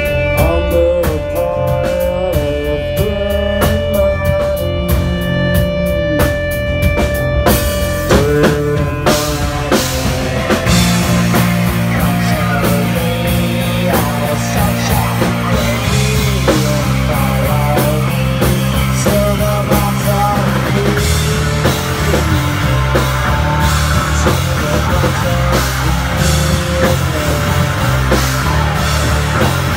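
Rock band playing: electric guitar over a held note and a steady ticking beat, then drums and bass come in with the full band about eight seconds in.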